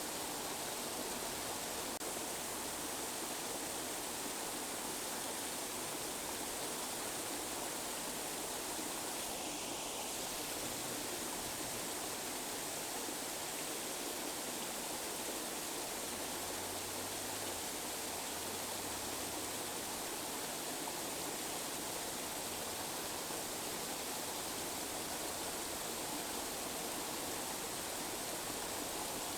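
Steady tinnitus-masking noise: an even, unchanging hiss spread across the middle and high pitches, with little bass.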